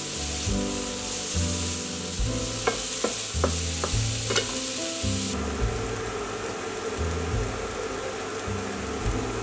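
Diced bacon and onion sizzling in a frying pan, stirred with a wooden spatula that clicks and scrapes against the pan a few times between about three and four and a half seconds in. Jazz with a walking bass plays underneath.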